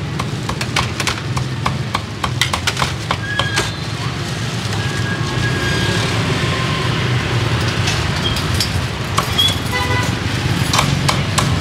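A cleaver chopping crispy roast pork on a wooden board: sharp irregular knocks in quick runs, thickest in the first few seconds and again near the end, over a steady rumble of street traffic.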